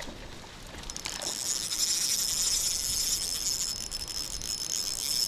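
Spinning reel buzzing steadily from about a second in, a high, even, insect-like whir.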